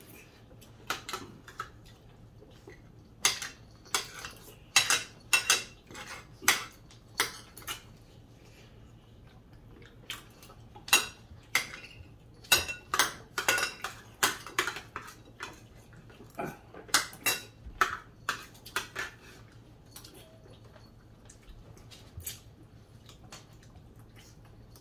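Cutlery clinking against plates as two people eat at a table: irregular clusters of sharp clicks with short quiet gaps between them.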